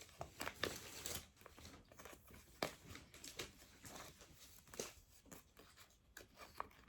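Toy packaging being handled and pulled open: faint crinkling and tearing with scattered small clicks.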